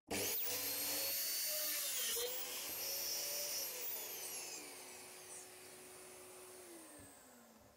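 Mafell DD40 dowel boring machine switched on, its motor starting abruptly with a high whine as it bores the dowel holes, then switched off and winding down with a falling whine over the last few seconds.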